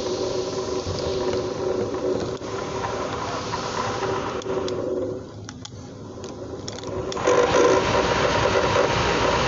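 Car's rear air-conditioning blower motor running with a rough, snoring growl ('ngorok'), a steady hum with faint tones. It dips for a couple of seconds in the middle, with a few clicks, then comes back louder near the end. The mechanic traces the noise to a worn bearing in the blower motor from age.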